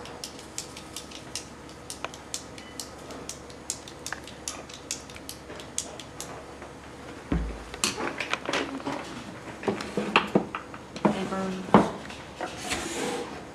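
A knife tapped over and over on a hard surface, about three sharp taps a second, for the first six or seven seconds. Then a low thump, followed by irregular knocks and clicks of handling at a computer desk.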